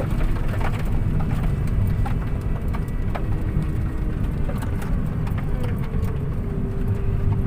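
Car driving: a steady low rumble of engine and tyres, with scattered clicks and knocks throughout and a faint steady hum in the last couple of seconds.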